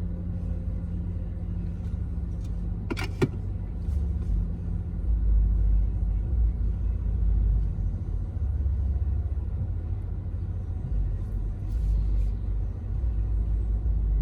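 Car engine and road rumble heard from inside the cabin of a car being driven. A steady hum runs for the first few seconds, then the rumble grows louder and more uneven from about four seconds in. A couple of sharp clicks come about three seconds in.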